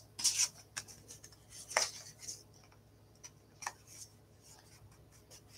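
Small pieces of cardstock being handled on a craft table: a short paper rustle at the start, then a few light taps and clicks of card set down and picked up.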